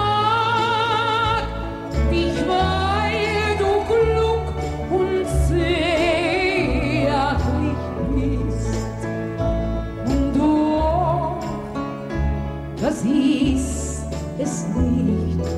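Background music: a sung melody with wide vibrato over a bass line.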